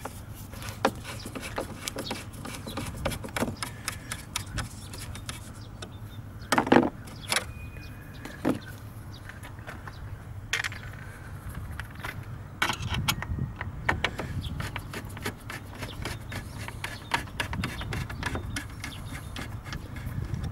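Irregular clicks and clinks of hand tools and small metal parts during work on a car, with a few louder knocks about seven, eleven and thirteen seconds in, over a steady low hum.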